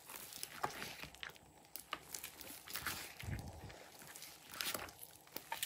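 Thick, sticky slime being stretched by hand and falling back into a bowl: irregular small sticky clicks and crackles, with a soft low thud about three seconds in.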